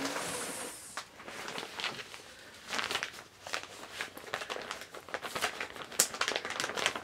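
Parcel packaging crinkling and rustling in irregular bursts as it is handled and opened by hand, with many short crackles and sharper clicks.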